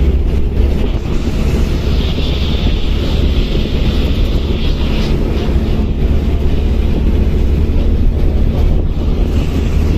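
Moving bus heard from inside: a steady low engine drone and road rumble, with wind buffeting the microphone.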